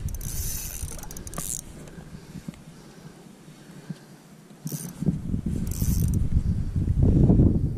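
Fishing reel working in short spells of ratchet clicking and line hiss, over wind rumbling on the microphone that swells near the end.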